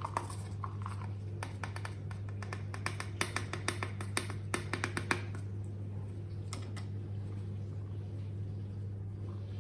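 Rapid light clicks and scrapes from about half a second to five seconds in, then a few scattered ones: powdered sugar being scooped into a measuring cup. A steady low hum runs underneath.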